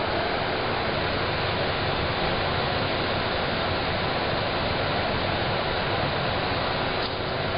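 Steady rushing hiss from the gas stove heating the wok of steaming water, with a faint tap near the end.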